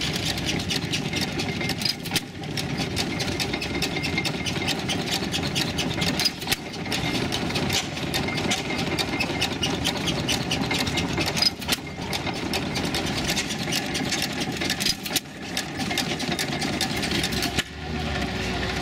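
Antique stationary gas engines running, a steady mechanical sound with rapid fine ticking of the valve gear, broken by a few brief dips where one engine gives way to another.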